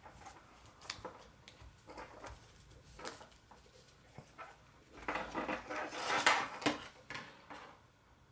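Handling noise of a braided latex clothesline and a cotton sock being worked together by hand: scattered small clicks and rubbing as the sock is pushed between the twisted rubber strands. It grows louder for about two seconds from around five seconds in, then dies away near the end.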